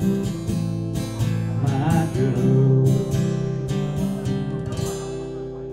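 Acoustic guitar strummed, the last strums giving way about three and a half seconds in to a held chord that rings out and fades as the song ends.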